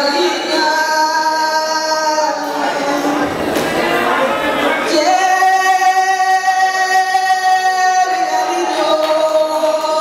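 A woman singing long held notes, with the longest held steady for about three seconds from about five seconds in.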